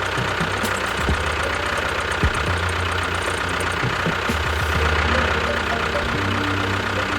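An engine running steadily with an even, low knocking beat.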